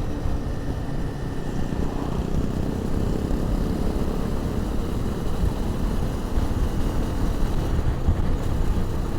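A 250 cc motorcycle engine running steadily while riding, under a dense rush of wind noise, heard through a lavalier mic inside the rider's crash helmet.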